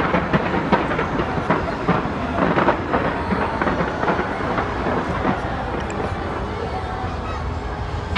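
Fireworks bursting in rapid, overlapping reports, sharp cracks and pops over a continuous low rumble. The reports are densest for the first half, then thin out into a steady rumble and hiss, with one sharp crack at the end.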